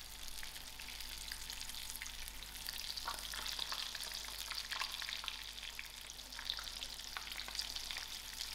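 Chip-crumbed chicken breasts frying in hot oil: a steady sizzle full of small crackles and pops.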